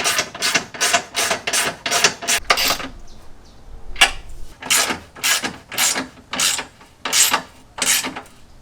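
Hand ratchet wrench being swung to run an anti-seized bolt back into the car's subframe, a short rasping click on each back-swing. About three strokes a second at first, a pause of about a second, then slower strokes, about two a second.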